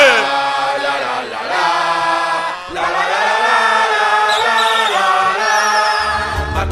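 Several voices chanting together in long held, sliding notes. Near the end a music track with a heavy bass comes in.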